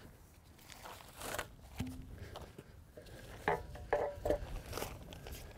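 A sheet laid over a freshly filled foot hole on a cricket pitch being handled and moved on the ground: scattered rustling and crinkling with light knocks and clicks.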